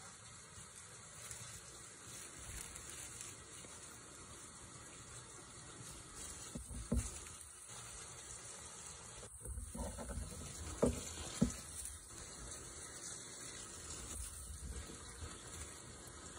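Dry fallen leaves rustling and crackling as kittens crawl through them, with a few sharper crunches about seven seconds in and again around ten to eleven seconds.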